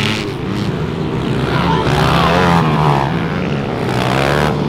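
Several pit bike engines revving together, their pitch rising and falling as they accelerate and ease off.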